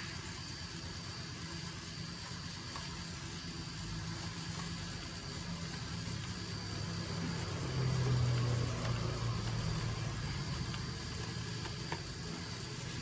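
A steady low mechanical hum, a little louder about eight seconds in.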